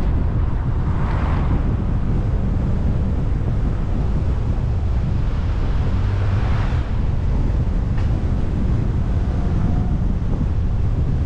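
Steady low wind rumble buffeting the microphone of a moving car, mixed with road noise, with two brief swells of hiss about one and six and a half seconds in.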